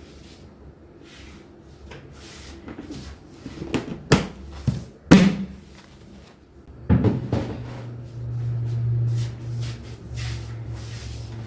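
Kitchen knocks and bangs of cupboard doors and cookware, the two loudest about four and five seconds in, another about seven seconds in, followed by a steady low hum.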